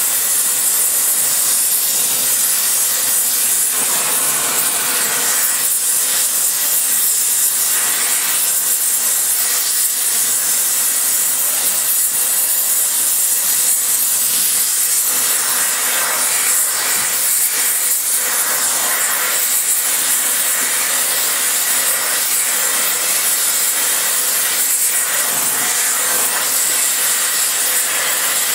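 Spray welding torch flame hissing steadily as it heats a cast iron cylinder head to a cherry-red glow, a stage of preheating for spray welding.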